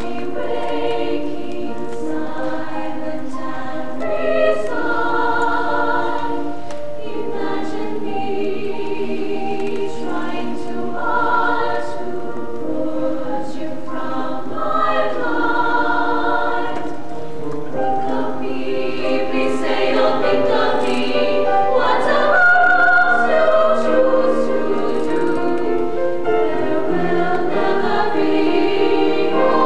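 School choir singing, holding long notes, growing a little louder about twenty seconds in.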